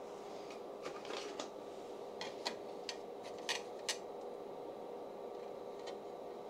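A thin-walled plastic 3D-printed part being handled, giving light clicks and crackles between about one and four seconds in, over a faint steady hum.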